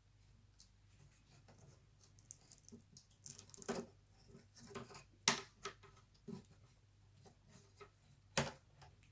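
Small clicks, scrapes and taps of hands and tools working inside a laptop being taken apart, with two sharper knocks about five and eight seconds in.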